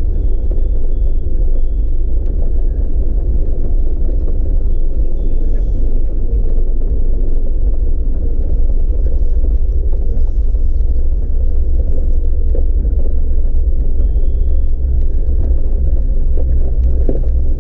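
A Jeep crawling slowly up a loose, rocky trail, heard from a camera on its hood: a steady low rumble of engine and tyres.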